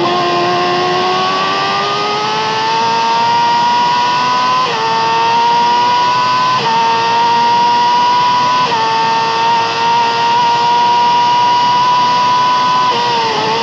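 Yamaha R6 inline-four sportbike engine with an Akrapovic exhaust at full throttle, heard onboard: the revs climb, then three quick upshifts about two seconds apart, each a brief dip in pitch before it pulls on at high revs. Near the end the revs drop with short blips as it downshifts.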